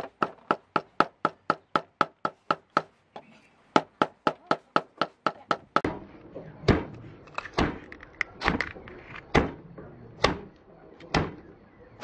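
A kitchen knife rapidly chopping red chillies on a cutting board, about four strikes a second with a brief pause. From about six seconds in come slower, irregular knocks and taps over a busier background, as a small crab and snails are handled with a knife over a plastic basin.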